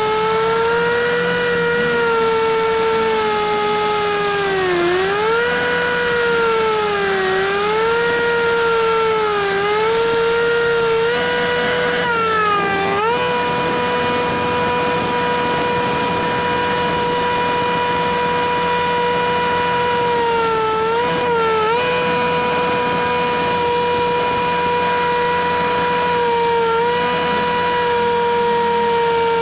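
Power cutting tool's motor running with a steady high whine, its pitch sagging briefly several times as it takes load.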